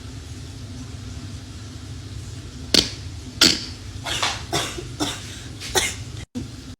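A person's short, breathy bursts through the nose and throat, about seven in three seconds starting about a third of the way in, over a low steady hum: irritation from a nasal swab.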